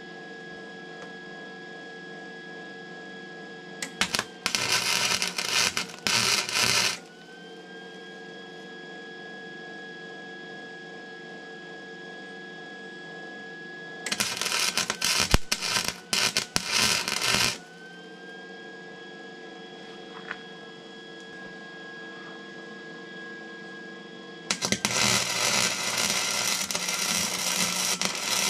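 Wire-feed arc welding on steel: three bursts of crackling arc, each about three seconds long, a few seconds in, midway and near the end, as pedal brackets are welded onto excavator travel levers. A steady machine hum fills the gaps between welds.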